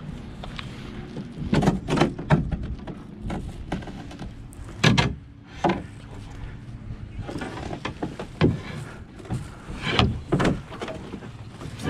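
Hollow knocks and thumps on a canoe hull, coming at uneven intervals as the paddle and the paddler's movements bump the boat while it is launched.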